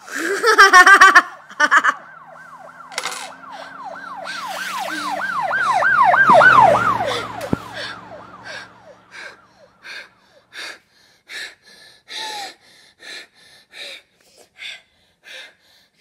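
A girl's voice making sound effects into a close handheld microphone: a short loud cry, then a quickly wavering wail that swells and fades, then a run of quick, evenly spaced panting breaths.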